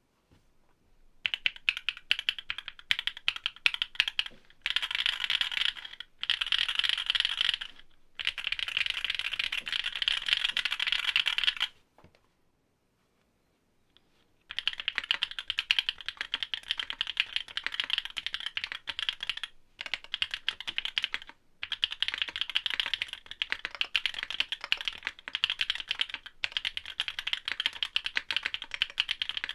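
Typing on a Geon F1-8X mechanical keyboard with OWLAB SWK Neon switches, DMK Vintage keycaps and an aluminium leaf plate: rapid key clacks starting about a second in, with stretches of fast continuous typing. About twelve seconds in the typing stops for two to three seconds, then goes on.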